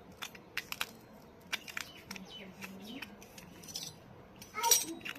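Small pieces of a miniature toy kitchen set clicking and tapping against each other as they are handled, with a louder clinking clatter near the end.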